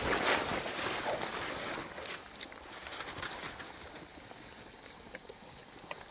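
Footsteps and rustling in grass as coonhounds are walked on a lead and turned loose. After about two seconds this drops away to quieter night air with a few scattered clicks.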